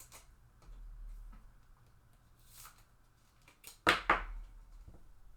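Trading cards and their packaging being handled on a table: a soft swish about two and a half seconds in, then two loud, sharp scrapes in quick succession about four seconds in.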